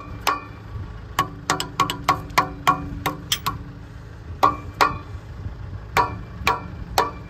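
An old wrench used as a hammer, striking a metal part of an ND-60T no-till seed drill to knock out something jammed in it. About fourteen sharp, ringing metal-on-metal blows in uneven runs, with a pause of about a second near the middle.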